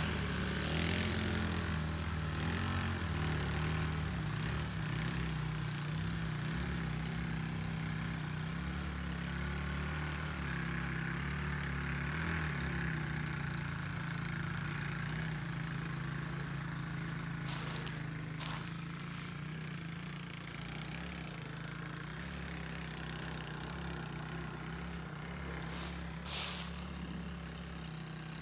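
KXD 125 cc ATV's single-cylinder four-stroke engine running steadily as the quad climbs a dusty forest trail, slowly fading as it pulls away. A few sharp clicks about two-thirds of the way through and near the end.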